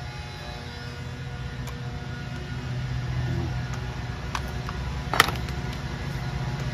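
A few sharp metal clinks as a small-engine flywheel and tools are handled, the loudest about five seconds in, over a steady low hum.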